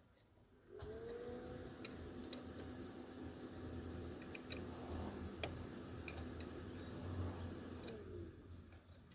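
A motor hums steadily for about seven seconds, rising in pitch as it comes up to speed and sinking as it winds down near the end. Scattered light metallic clicks of a hand tool working at a truck's wheel hub sound throughout.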